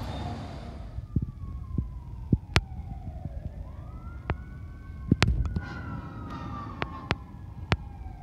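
Emergency vehicle siren wailing: a single tone that slowly falls, rises again about three and a half seconds in, then falls once more, over a low rumble. Several sharp clicks or knocks stand out above it, the loudest about two and a half and five seconds in.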